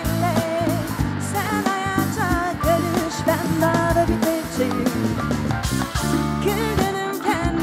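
Live band playing the instrumental break of a Turkish pop song: drum kit, bass guitar, guitar, keyboard and hand percussion, with a bending melodic line over a steady beat.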